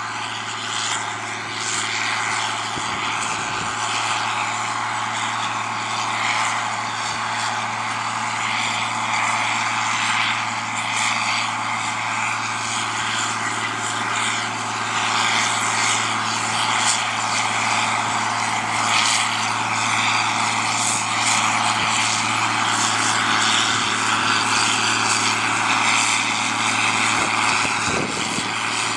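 John Deere 4650 tractor's six-cylinder diesel engine running steadily while pulling a planter, a constant engine drone with no change in pace.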